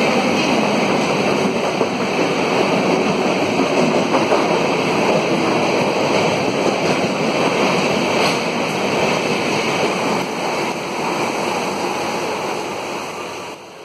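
Steady rushing noise of a passenger train's coaches running past a station platform at speed in heavy rain, the roll of the wheels blended with the downpour. It fades out near the end.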